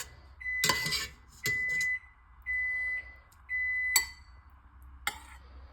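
An electronic kitchen beeper sounding four beeps of one steady high tone, about one a second, with sharp clinks of metal or glass about four and five seconds in.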